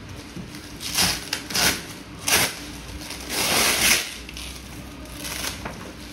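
Clear plastic film wrapped around a cardboard carton crinkling and rustling as hands grip and pull at it: three short rustles, then a longer one about three and a half seconds in, and a fainter one near the end.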